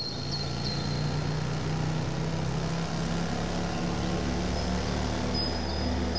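An engine running steadily, a low even rumble with no change in speed, and a faint high thin tone near the start and again near the end.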